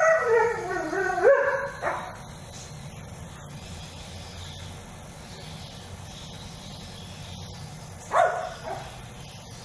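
Large dog, a husky, vocalising: a long wavering whine-howl that slides down in pitch over the first two seconds, then jumps back up. A short yelp-like call comes about eight seconds in.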